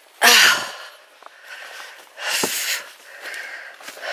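A walker breathing hard close to the microphone, with three loud breathy exhales about two seconds apart and quieter breaths between.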